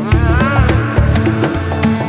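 Electronic music with a steady, heavy kick-drum beat and crisp percussion. Near the start a melodic line bends up and down in pitch.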